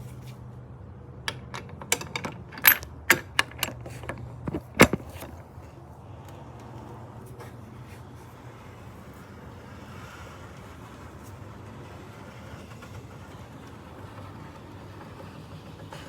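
Sharp metallic clicks and clinks of a wrench working the oil filter housing cap as it is tightened clockwise, about eight irregular strikes over the first five seconds, then only a low steady hum.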